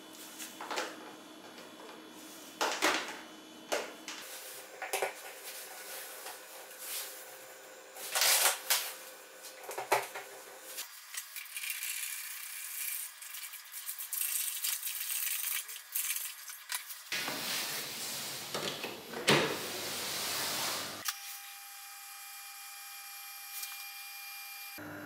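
Clicks and knocks of plastic parts as cable glands and a lid are fitted to a plastic coolant tub, then a steady splashing pour as red coolant is poured from a plastic jug into the tub. Near the end it settles to a quieter steady sound, with coolant running back into the tub from its return tube.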